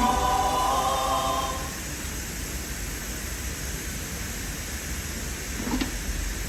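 Choir-like singing in the soundtrack music fades out within the first two seconds, leaving a steady hiss.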